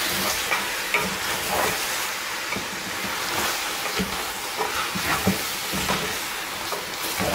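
Goat meat and onions frying in a pot, sizzling steadily, with scattered knocks of a spoon stirring against the pot.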